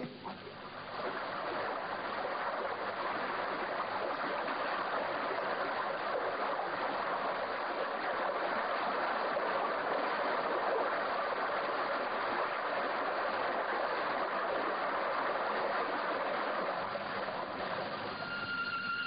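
Steady rushing of running water, swelling up in the first second and easing off near the end as music comes in.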